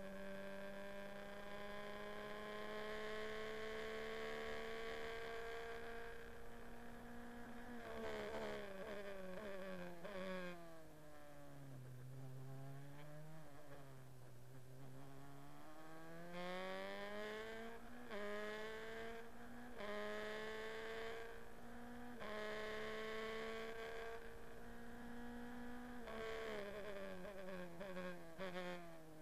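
Formula Renault 2.0 car's four-cylinder engine, recorded on board: held high in gear, then a run of quick downshifts about eight seconds in, low revs through a slow corner, climbing again through several upshifts from about sixteen seconds, and stepping down through the gears again near the end.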